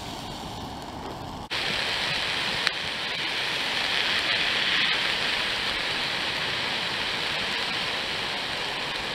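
A campfire burning, then after a cut a louder steady hiss from a gas camping stove with a pan of vegetables cooking on it. There is a single sharp click about two and a half seconds in.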